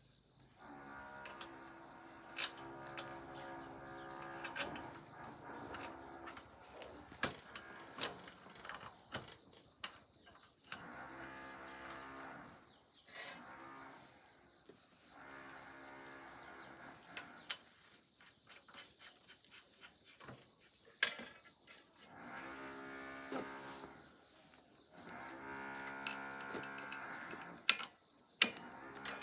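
A low, steady-pitched drawn-out sound, heard five times with pauses between, with sharp clicks or taps scattered through.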